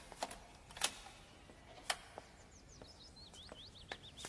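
Small birds chirping faintly, a quick run of short high chirps in the second half. A few sharp clicks come before it.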